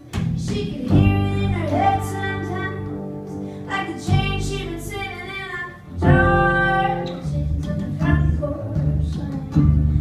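A song starting live: a woman sings over plucked upright double bass and strummed acoustic guitar, the band coming in suddenly right at the start.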